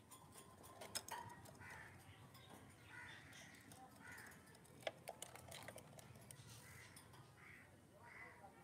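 Lovebirds giving faint, short chirps in a loose string, one every half second or so, with a couple of sharp clicks, one about a second in and one near the middle.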